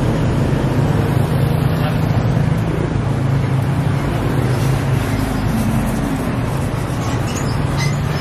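A steady low engine hum runs throughout, with faint voices in the background.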